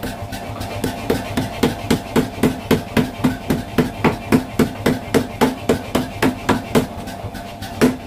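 Mechanical power hammer pounding a red-hot knife blank of ball-bearing steel on its anvil die, about three blows a second, over a steady machine hum.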